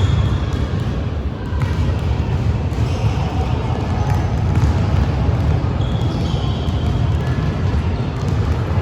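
Basketball bouncing on a gym floor during play, over a steady low rumble of the hall.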